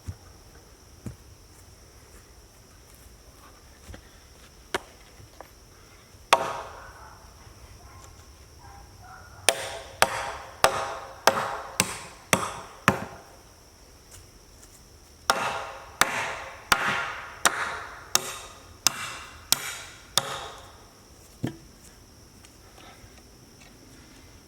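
Lever of a home-made ratchet rock sled being worked along its track, each stroke giving a sharp wooden knock with a short ring. The knocks come in two runs of six or seven, about one and a half a second, with a single knock before them. A faint steady high insect hiss lies underneath.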